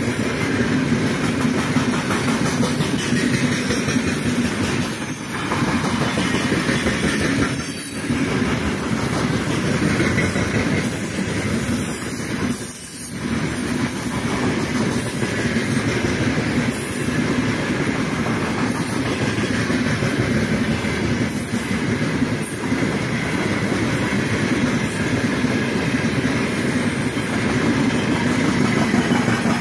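Freight train of loaded open-top gondola wagons rolling past: a steady rumble and clatter of steel wheels on the rails.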